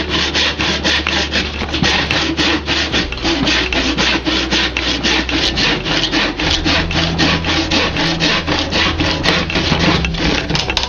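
Hand saw cutting through pallet wood in quick back-and-forth strokes, about four a second.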